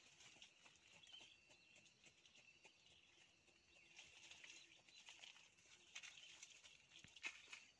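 Near silence: faint, scattered rustles and light ticks from a baby macaque dragging and tugging a cloth hat over dry leaves and dirt.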